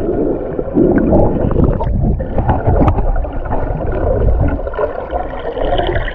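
Muffled water churning and sloshing around a camera held underwater while snorkeling, with scattered small knocks.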